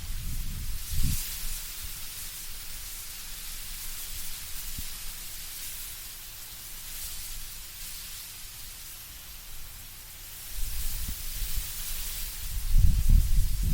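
Wind blowing through autumn trees, the leaves rustling in a soft hiss that swells and eases in slow gusts. A low rumble of wind builds again near the end as a stronger gust comes through.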